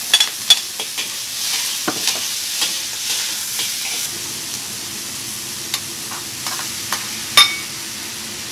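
Fresh chillies, ginger and garlic sizzling in hot oil in a wok while a metal ladle scrapes and clinks against the pan as they are stir-fried until fragrant. The sizzle is loudest at the start and eases a little after about four seconds, with one sharp clank near the end.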